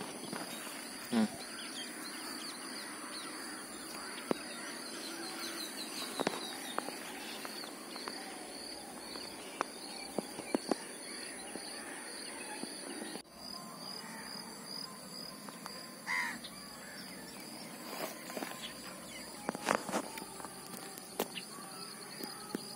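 Steady high insect drone in the background, with scattered clicks and rustles from a plastic bag and grass being handled. A short bird call about two-thirds of the way through.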